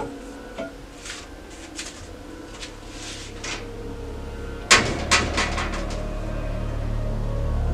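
Top-loading washing machine lid being lifted, banging open with one sharp clack and a few rattling clicks just after. Before that come soft rustles of movement, and afterwards a low drone swells.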